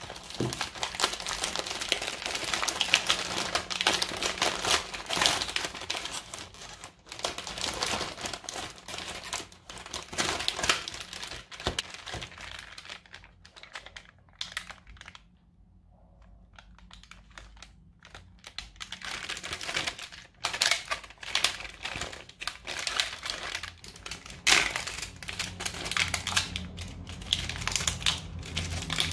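Plastic packaging of a Puf marshmallow biscuit packet crinkling and crackling as it is handled and opened and the biscuits are unwrapped from their clear plastic tray. It comes in spells, with a quieter stretch a little past the middle.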